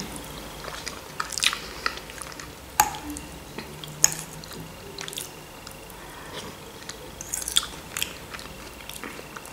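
Close-up chewing of a mouthful of pasta with minced meat, with soft wet mouth sounds, and a few sharp clicks of a metal fork against the plate.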